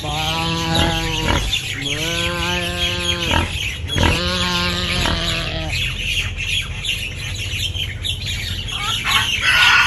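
Sheep bleating three times in the first five seconds, each call steady in pitch and a little over a second long, with birds chirping throughout.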